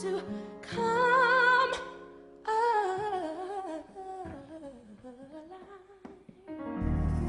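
A song playing: a wordless vocal line with vibrato over a held low accompaniment, gliding down through a long descending run. Near the end a louder, fuller low chord comes in.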